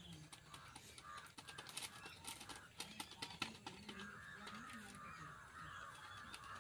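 Crinkling and rustling of small paper-and-plastic spice sachets being torn open and shaken out over a steel plate, as short crackly clicks. Faint repeated calls are heard in the background from about four seconds in.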